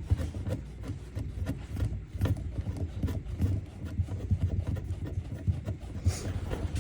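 Rubbing, scraping and small irregular clicks as a threaded drain-pipe fitting, coated with pipe dope, is handled and screwed in, over a low uneven rumble.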